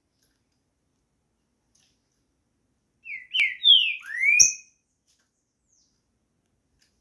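Green-winged saltator (trinca-ferro) singing one short phrase of four or five clear, sliding whistled notes about three seconds in. Two sharp clicks fall within the phrase.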